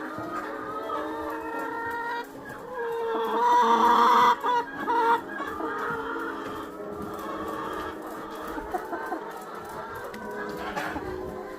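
Chickens clucking, with a loud rooster crow about three seconds in that lasts roughly two seconds, over background music.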